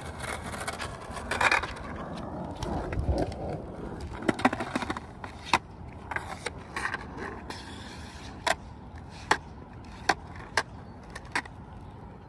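Skateboard wheels rolling and dragging across a painted hardcourt as the rider pivots through freestyle flamingo turns. A run of sharp clicks and knocks comes in the second half.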